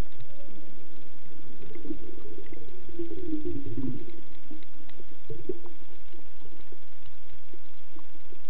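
Underwater sound heard through a camera housing: a low, muffled water rumble with scattered faint clicks. A short low tone slides downward about three to four seconds in.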